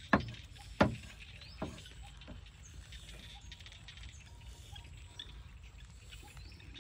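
Cleaver chopping on a wooden chopping board: two sharp knocks in the first second and a weaker third near two seconds in, then only faint light clicks over a low steady rumble.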